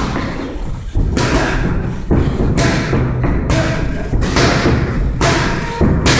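Boxing gloves punching focus mitts held by a trainer: a series of sharp smacks, roughly one or two a second, echoing in a large room.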